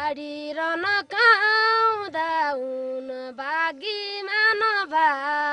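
A woman's voice singing a slow melody alone, long held notes with pitch bends and small ornaments, broken by short breaths about every second.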